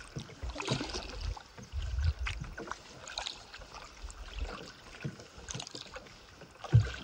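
Canoe being paddled: paddle strokes in the water with drips and splashes, and gusts of wind rumbling on the microphone every couple of seconds. Birds sing in the background, and a single low thump near the end is the loudest sound.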